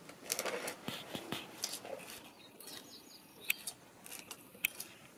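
Faint scraping and light clicks of a plastic spatula spreading thick resin mortar over a cracked concrete floor, working it into the crumbling cement and gravel.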